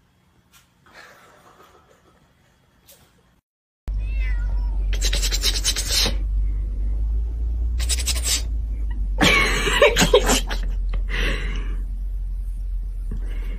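Cat meowing loudly and repeatedly: about five drawn-out, wavering calls starting about four seconds in, over a steady low rumble.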